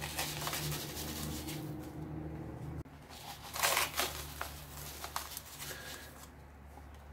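Coarse non-iodized sea salt poured onto chicken slices and salt in a plastic tub: a granular hissing patter, with a louder rush about halfway through.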